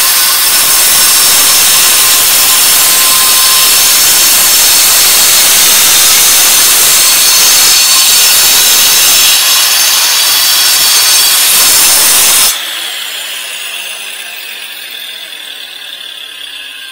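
Hikoki angle grinder cutting into a concrete paving slab: a loud, steady grinding hiss of the disc through stone. About twelve and a half seconds in the cut stops abruptly and the freewheeling disc winds down with a falling whine.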